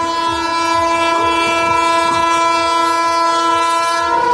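WAP7 electric locomotive's air horn sounding one long, steady blast of several tones at once as the train approaches; the chord shifts just before the end.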